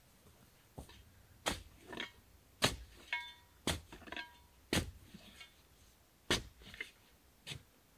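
Shovel digging sandy soil: the blade stabs into the sand at about one stroke a second, each followed by a swish of sand being scooped and thrown. Twice near the middle a short ringing tone sounds.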